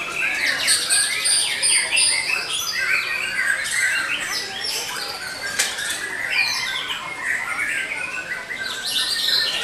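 Several caged white-rumped shamas singing at once: many loud, overlapping whistled and warbled phrases that never pause.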